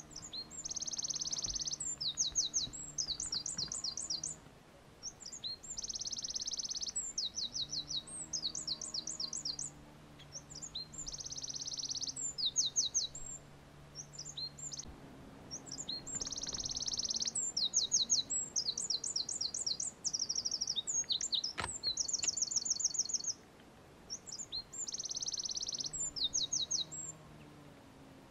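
Eurasian wren singing: about six song phrases of a few seconds each, high-pitched buzzy trills and fast runs of quick repeated notes, with short pauses between them.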